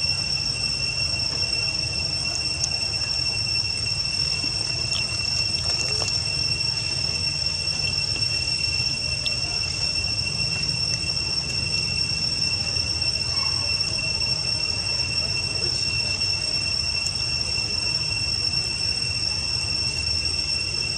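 Insects droning: one steady high-pitched tone that never breaks, over a low rumble.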